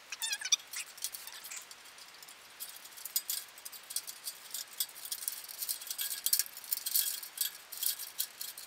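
A string of mini Christmas lights being pulled and threaded through the wire bars of a metal birdcage: small plastic bulbs and wire clicking and rattling against the metal. The light clicks come in quick, irregular bunches, sparse at first and busier after the first couple of seconds.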